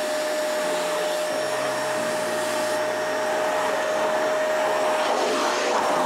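A 2100-watt GVC canister vacuum cleaner running steadily while its floor nozzle is pushed over carpet: a constant rushing hiss with a steady whine from the motor.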